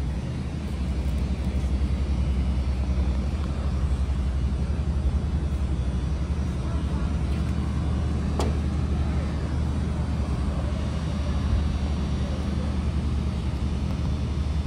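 Steady low rumble with faint voices in the background, and a single sharp click about eight seconds in.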